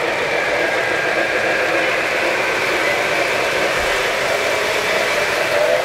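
Model trains running around the layout: a steady rolling and motor noise from the locomotives and cars on the track, with a faint steady high whine underneath.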